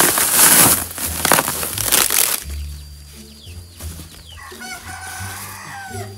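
Woven sack rustling and pineapples being shifted in the first couple of seconds, then a rooster crows once near the end, its call falling off at the finish.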